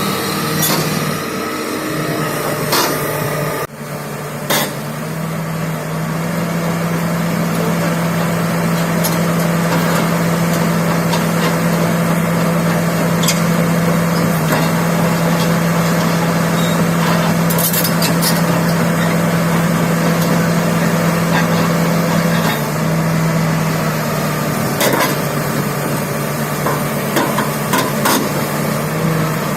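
Hitachi 330H hydraulic excavator's diesel engine running steadily, its note stepping up slightly about six seconds in and dropping back near the end, with scattered metallic clanks and knocks over it.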